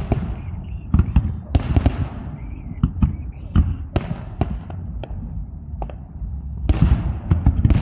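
Fireworks going off in a rapid string of sharp bangs and cracks, several with a crackling hiss trailing away after them, over a steady low rumble.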